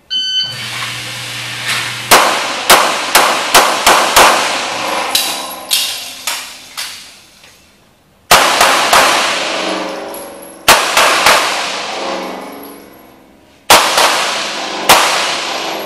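A short electronic shot-timer beep, then a handgun fired in quick strings of shots, several a second, with short pauses between strings. Each shot echoes with a long ring off the concrete walls of an indoor range.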